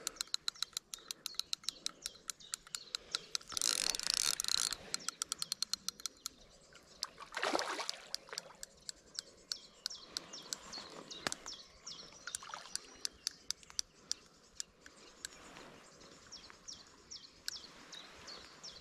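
Fixed-spool fishing reel ticking as a hooked barbel is played in: a quick, regular run of clicks for the first few seconds, then slower, irregular ticks. Two short bursts of noise break in about four and seven and a half seconds in, and birds chirp in the second half.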